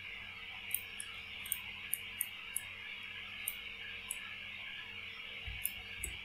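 Faint, irregular small clicks and taps from handwriting being entered on a digital board, over a steady hiss.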